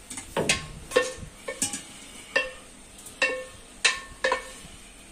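Cookware clinking as seared beef is scooped out of a stainless steel pot: about eight sharp knocks, several of them ringing briefly with a metallic tone.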